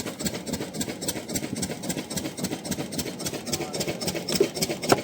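An engine running steadily with a rapid, even beat, with one sharp knock just before the end.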